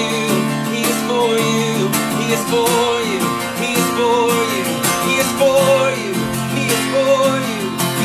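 A man singing a slow worship song while strumming an acoustic guitar in a steady rhythm, his voice holding long, wavering notes over the chords.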